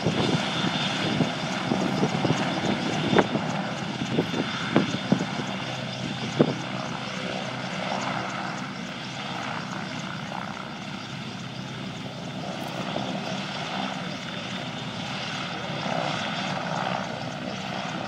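RAF AW101 Merlin helicopter running steadily on the ground, its three turboshaft engines and rotor turning. A few sharp knocks come in the first six seconds or so.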